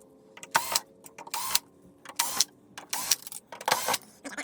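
Six short rattling, scraping noises at an even pace, a little over one a second, from a projector's casing being handled and worked on during disassembly.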